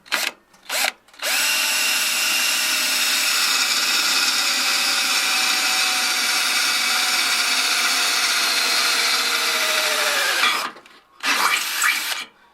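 Power drill turning a step drill bit to bore a hole. It starts with two short blips, then runs steadily for about nine seconds, its pitch sagging slightly near the end as the bit bites, stops, and gives one more short burst near the end.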